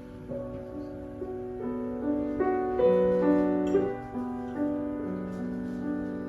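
Solo piano playing a slow introduction, with held notes and chords changing every half second or so.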